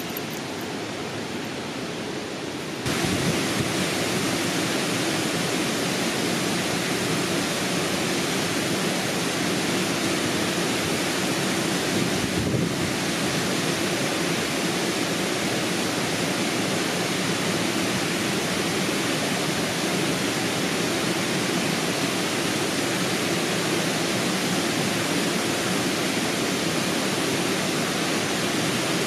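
Steady rushing water of a mountain stream or waterfall, an even roar with no breaks. It gets louder about three seconds in and then holds steady.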